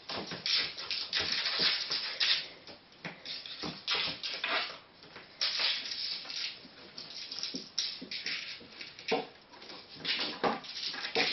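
Irregular scratchy scrabbling and skittering of a pet ferret's claws on a laminate floor as it leaps about in play, in uneven bursts.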